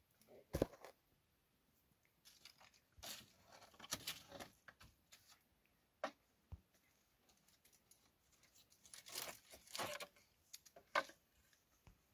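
Dry firewood being handled: sharp knocks of wood on wood and dry rustling scrapes as sticks are pulled out of a stacked woodpile. A few single knocks are spread through, with two longer stretches of scraping, one a few seconds in and one past the middle.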